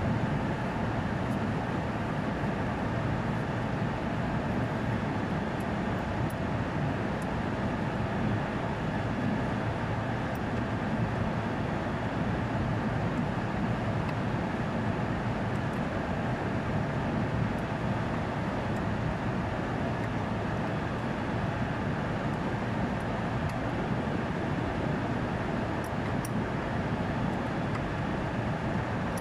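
Steady drone of running machinery in a plant room of large air-conditioning units, an even rumbling noise with a faint hum running through it and a few faint light ticks.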